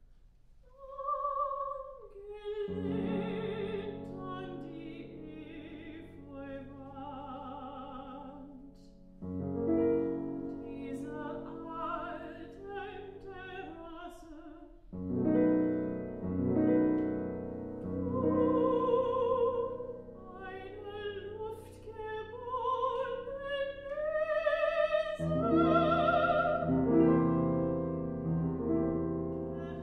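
Soprano singing an art song with grand piano accompaniment, the voice wavering in a classical vibrato. The music starts about a second in, after a silence, and goes on in long phrases.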